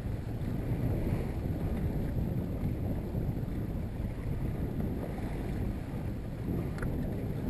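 Wind buffeting a bow-mounted camera's microphone and water rushing along the hull of a small open-bow boat under way at trolling speed, a steady low rumble. One faint click about seven seconds in.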